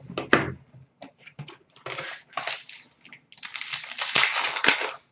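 Cardboard trading-card box being handled and opened, with scattered rustles and light clicks. About three seconds in, a foil card-pack wrapper is crinkled and torn open for about a second and a half.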